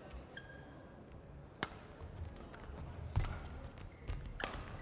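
Badminton rally: rackets striking the shuttlecock three times, about a second and a half apart, with court shoes squeaking on the floor and the thumps of footwork.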